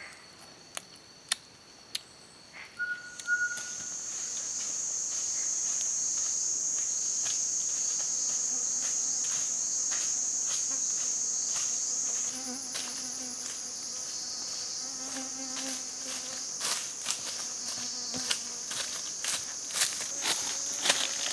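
A steady, high-pitched insect chorus starts about three seconds in. About halfway through it shifts to a higher, thinner buzz. Sharp clicks and snaps are scattered throughout.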